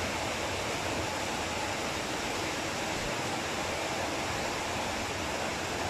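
A steady, even hiss with no distinct sounds over it.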